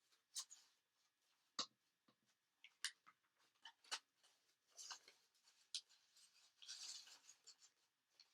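Folded paper being handled and pressed together as glued fan pleats are joined: faint scattered crackles and taps, with a short rustle near the end.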